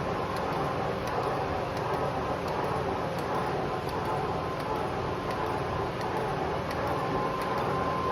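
Washino PUX-25 air-clutch power press running steadily, its drive giving a continuous mechanical hum with a thin steady whine and faint light ticking.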